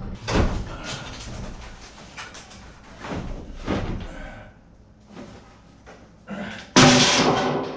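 Wooden boards being knocked loose and banging: a few sharp knocks, then one loud crash near the end that rings on for about a second.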